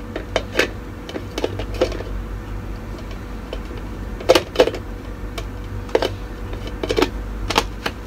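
Manual pull-cord food chopper working: each pull of the cord spins the blades inside the plastic jar through cucumber pieces, giving irregular sharp clicks and knocks, about a dozen of them.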